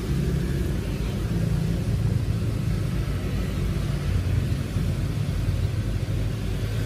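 Steady low rumble under an even hiss, with no distinct events.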